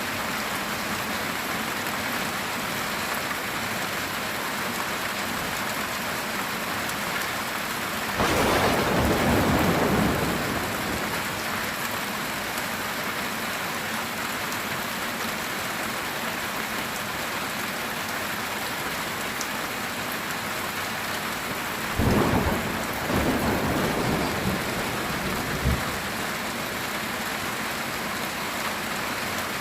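Steady heavy rain on a metal tin roof, with two rolls of thunder: one about eight seconds in lasting about two seconds, and a second starting with a sharp crack about twenty-two seconds in and rumbling for a few seconds.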